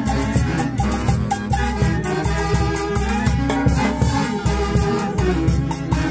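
Huayno music played by a saxophone orchestra: a section of saxophones carrying the melody over a drum kit with timbales keeping a steady beat.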